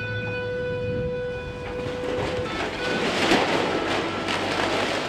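Hitachi demolition excavator's grab tearing into corrugated steel roof sheeting. A sustained metallic screech rings out over the machine's running engine and stops about halfway, then sheet metal crunches loudly about three seconds in.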